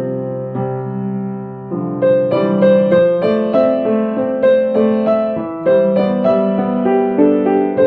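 Solo piano music: held chords at first, then from about two seconds in a steady run of single notes struck a few times a second.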